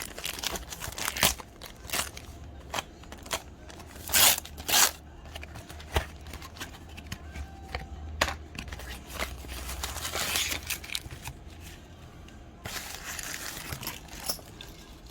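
A parcel being torn open by hand: irregular ripping and crinkling of packaging, with sharp crackles, the loudest two close together about four seconds in.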